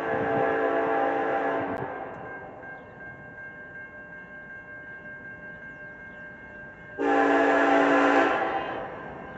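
Diesel freight locomotive air horn sounding twice: a chord held from the start and cut off suddenly just before two seconds in, then another loud blast about seven seconds in that lasts about a second and a half. In between, the rumble of a passing freight train, with a faint steady high tone under everything.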